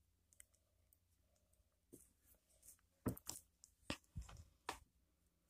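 A handful of soft clicks and knocks, small action camera's buttons pressed and the camera handled, over near silence.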